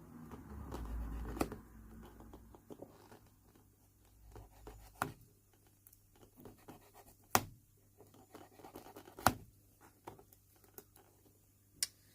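Scratching and scraping of the old leather welt being worked off a shoe's sole, the leather dry and cracking, with a few sharp isolated clicks in the second half.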